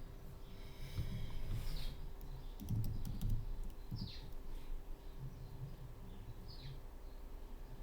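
Faint clicking and handling noises, like typing or a mouse, with a few short, high, downward-sliding chirps, like a small bird's, spaced a couple of seconds apart.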